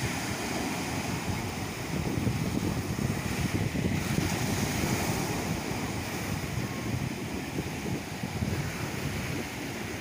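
Small sea waves breaking and washing up a sandy beach in a steady rush, with gusts of wind buffeting the microphone.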